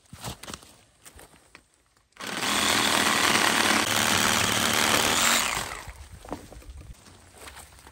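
Small cordless battery chainsaw starting about two seconds in and cutting through a thin log for about three seconds, with a steady buzz, then winding down as the cut finishes.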